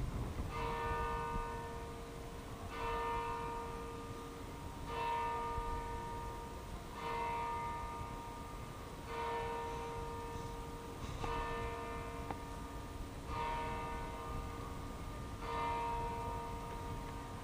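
A single church tower bell struck eight times, about two seconds apart, each stroke ringing on and fading before the next: a tower clock striking eight o'clock.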